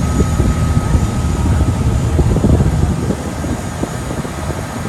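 Engine of a river passenger boat running steadily, with wind buffeting the microphone and water rushing past; the low rumble eases about three seconds in.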